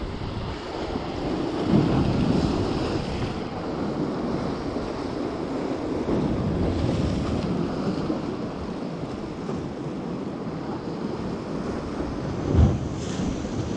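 Sea waves washing in, with wind rumbling on the microphone, swelling and easing in surges. Near the end there is a short thump.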